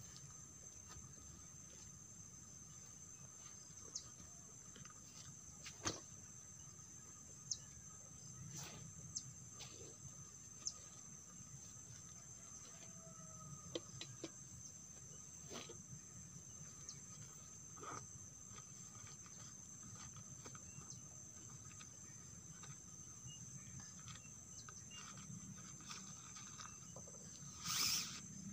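A steady high-pitched insect chorus at dusk, with a fainter second insect note beneath it. Scattered faint clicks and ticks sound throughout, and a short rustle comes just before the end.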